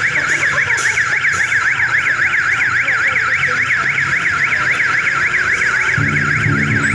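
Electronic siren with a single tone sweeping rapidly up and down, several times a second. About six seconds in, a low rhythmic music beat comes in underneath.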